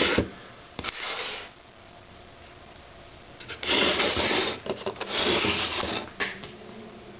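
Handling noise: three bursts of rubbing and scraping, with a sharp click near the end.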